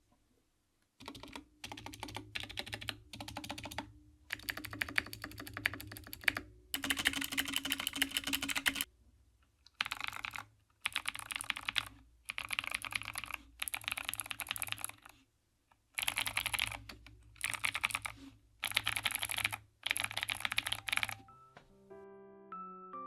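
Typing sound test on a Redragon K552 mechanical keyboard with clicky Outemu blue switches, modded with foam, lubed switches and new keycaps: bursts of fast key clatter, each a second or two long, with short pauses between. Near the end the typing stops and soft piano music comes in.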